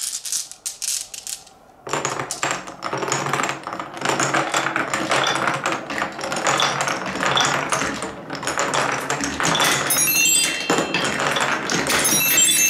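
Many glass marbles rolling and clattering through wooden marble-run channels: a dense, continuous stream of clicks and knocks that starts suddenly about two seconds in. Near the end, clear ringing clinks join in as the marbles knock against each other on the wooden spiral.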